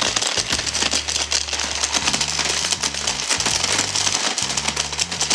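Electric chopper grinding hard jelly beans into powder: a dense, steady crackling rattle of candy bits against the plastic bowl.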